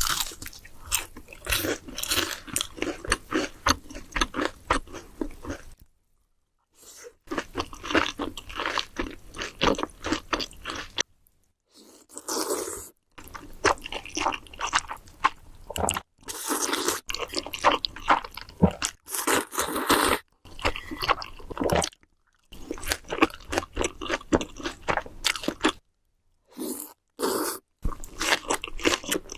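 Close-miked eating of crunchy food: bites and crunchy chewing, in stretches of a few seconds broken by several brief cuts to silence.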